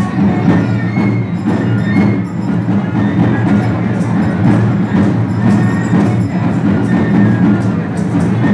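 Live traditional dance music: a drum struck in a steady, repeating beat, with a few short high melodic notes over it.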